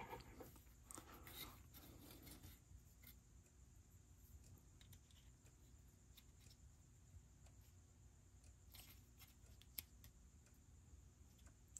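Near silence, with faint rustling and small clicks in the first couple of seconds as a small plastic zip-top parts bag is handled, and a single light tick near the end.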